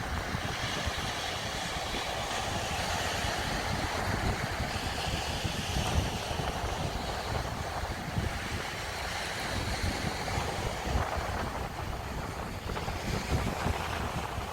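Sea waves washing onto the shore in a steady hiss, with strong wind buffeting the microphone in a low, rough rumble.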